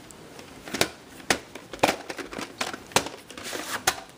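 VHS tapes and their sleeves being handled: a string of sharp plastic clicks and knocks, several of them, with rustling in between.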